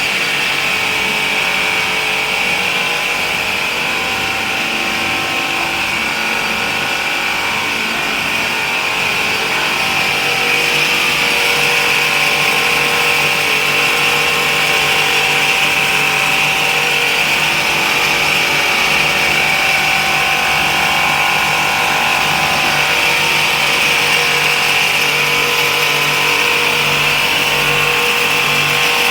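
Motor-driven stone-cutting machine running: a loud, steady whine and hiss from its motor and spinning saw blade over a constant low hum, getting a little louder about ten seconds in.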